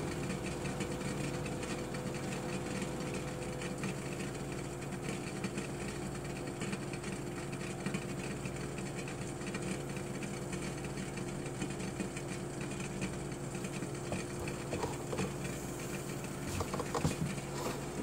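A steady mechanical hum with a few fixed low tones, unchanging throughout, with a few faint knocks near the end.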